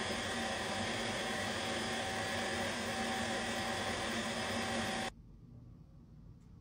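Stand mixer motor running a pasta roller attachment as a sheet of fresh pasta dough passes through, with a steady whine. It cuts off suddenly about five seconds in.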